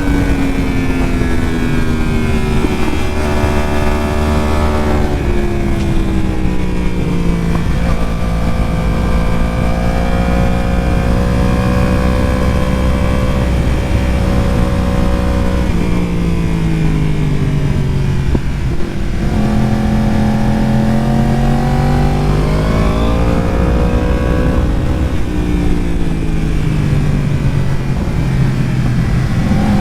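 Yamaha R1 sport bike's inline-four engine under a rider on track, the revs rising and falling through corners and straights, with sudden drops in pitch at gear changes every few seconds.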